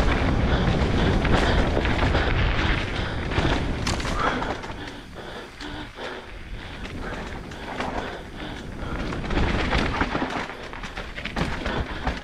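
Enduro motorcycle being ridden over a rocky trail, picked up by a camera on the bike or helmet: a jumble of dull thumps, knocks and buffeting over the bike's running. Loudest for the first few seconds, then quieter and more broken up.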